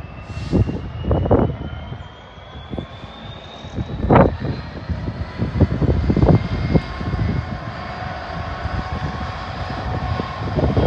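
A train moving through the station: a whine that slowly rises in pitch, over irregular low thumps, the strongest about four seconds in.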